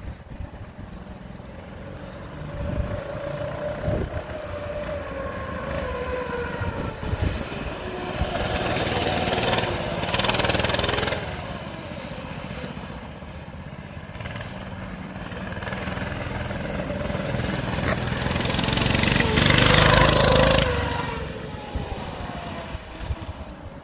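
Small 196cc single-cylinder four-stroke go-kart engine running under throttle, its pitch rising and falling as the kart accelerates and slows. It is loudest twice, about ten seconds in and again about twenty seconds in, as the kart comes close.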